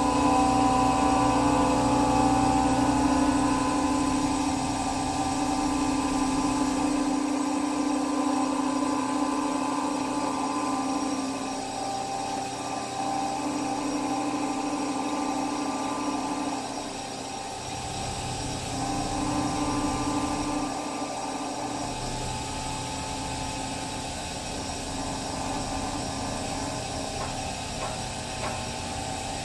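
Steady mechanical hum with a droning tone, loudest at the start and easing off over the first half, then swelling again briefly a little past two-thirds through.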